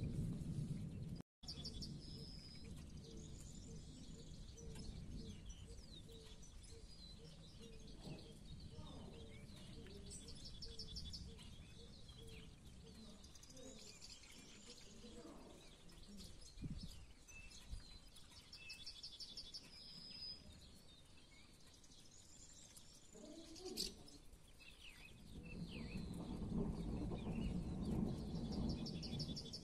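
Faint songbird singing a short, high trilled phrase that repeats every few seconds. Low thunder rumbles at the very start and again over the last few seconds.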